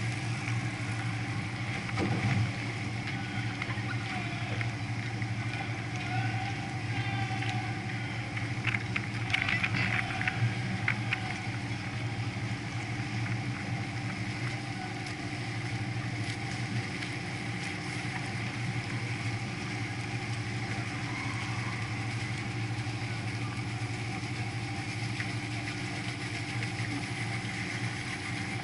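Canal tour boat's engine running steadily under way, a constant low hum with water and air noise around it. A few brief clicks and knocks come about ten seconds in.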